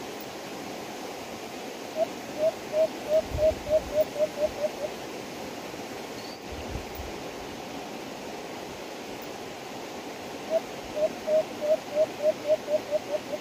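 White-eared brown dove calling: two runs of about a dozen short hoots that come faster and shorter as each run goes on. The first starts about two seconds in and the second near the end, over a steady hiss.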